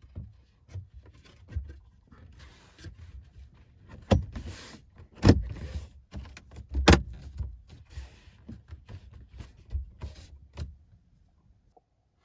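Plastic dashboard trim being handled and fitted: a decorative speaker horn going onto the center speaker, with a run of light clicks and rustling and three sharper knocks around the middle.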